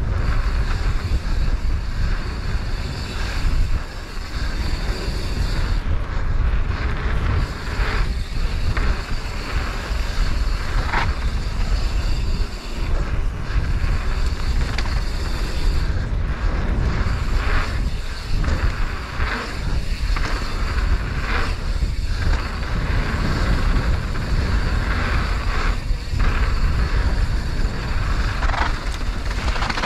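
Wind buffeting an action camera's microphone on a mountain bike descending a fast dirt flow trail, with a heavy, steady rumble from the ride and a few brief lulls.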